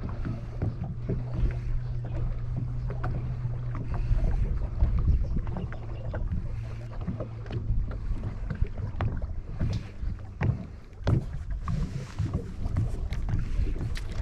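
Electric trolling motor on a small boat giving a steady low hum that stops about six seconds in, under wind on the microphone and scattered knocks against the boat.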